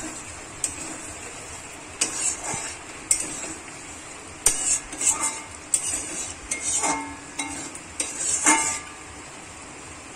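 Metal spatula scraping and clinking against a metal kadai as a thick egg curry is stirred: irregular strokes, some with a short metallic ring. The strokes stop about nine seconds in.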